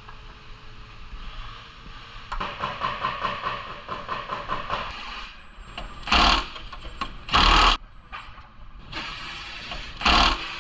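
Sheet-metal rocker panel scraping and rattling as it is shifted by hand. Then a cordless impact wrench hammers a door hinge bolt in three short bursts, two close together and one near the end.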